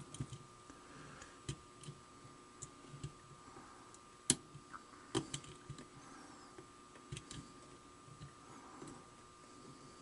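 Faint, irregular clicks and light scraping of a thin steel lock pick and tension wrench working the pin stack of a brass Prevost pin-tumbler padlock, with sharper clicks about four and five seconds in.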